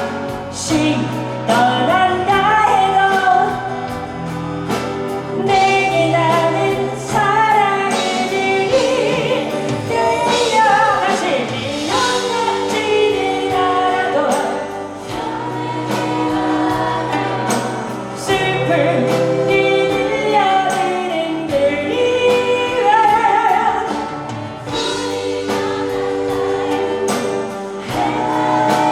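Live ballad performance: sung vocals, with several voices together, over a band with sustained chords and a steady bass line.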